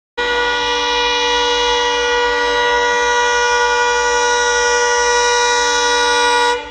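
Locomotive horn sounding one long, steady blast at a constant pitch, cutting off sharply near the end.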